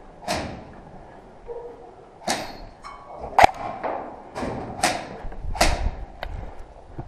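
Airsoft rifle shots fired singly, about six sharp cracks at uneven intervals, each followed by a short echo off the walls of a large room.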